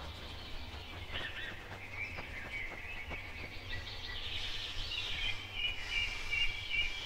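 Woodland ambience of birds chirping and calling, with a steadier high trill coming in over the last two seconds.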